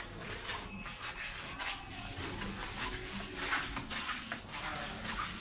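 Footsteps on a hard tiled floor with rustling handling noise from a hand-held camera, irregular clicks and knocks in an indoor space.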